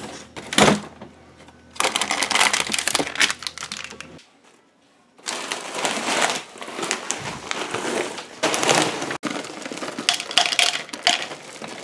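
Food packaging being handled: crinkling, rustling and clattering as boxes and packets are taken out and set down. It comes in several short stretches with a brief silence about four seconds in.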